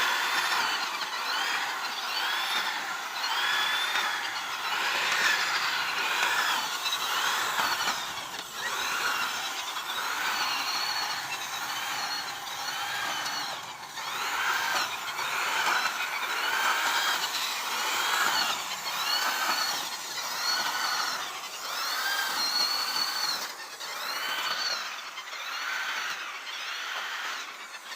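A small motor running, its whine swinging up and down in pitch about once a second.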